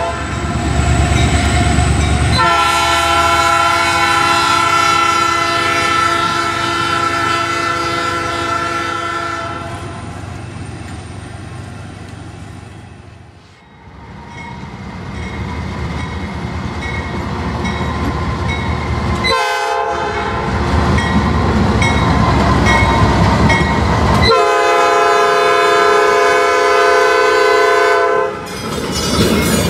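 Diesel freight locomotive horns blowing long chord blasts, for most of the first nine seconds and again for about four seconds near the end, with the low rumble of passing freight trains and rolling cars in between. The sound cuts abruptly a few times as scenes change.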